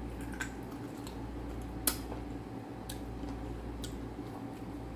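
Eating sounds: a few sharp clicks and soft taps, the sharpest about two seconds in, over a steady low hum.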